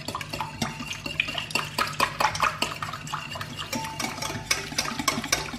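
Wire whisk beating a thin mixture of milk, sugar, yeast and eggs in a glass bowl: quick, even clicks and clinks of the wires against the glass, with a wet swishing of the liquid.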